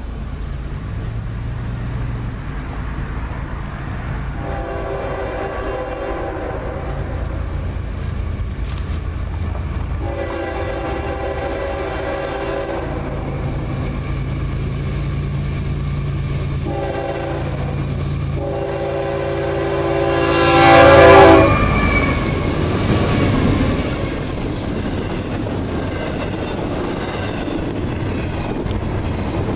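A CSX freight locomotive's air horn blowing the grade-crossing signal as the train approaches, long, long, short, long, the last blast loudest as it passes and dropping in pitch. Then the rumble and clatter of double-stack container cars rolling by.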